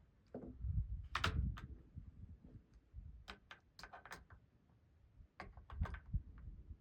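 Scattered light clicks and knocks of something being handled, several coming in quick pairs or threes.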